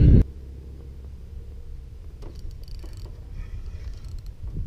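Wind buffeting the microphone, loud at first and cut off abruptly a moment in, then a low steady rumble of wind.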